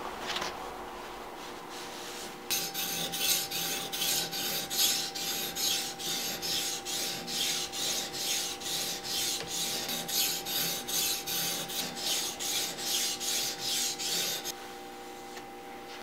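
Edge Pro 400-grit sharpening stone on its guide rod, stroked back and forth across the steel edge of clamped poultry shears: a rasping scrape about twice a second. The strokes start a couple of seconds in and stop a little before the end. This is edge grinding at the 400-grit stage, before the finer grits.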